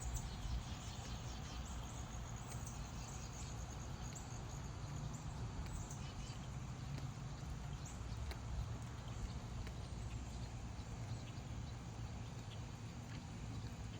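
Faint outdoor ambience: a steady low rumble with scattered faint high chirps and ticks.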